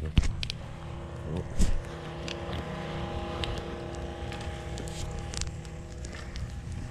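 A vehicle engine running steadily, with a sharp knock just after the start, a low thump about a second and a half in, and scattered light clicks.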